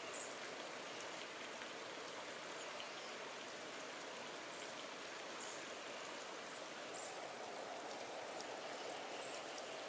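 Steady rush of flowing water, a shallow stream running over rock, with a few faint high ticks.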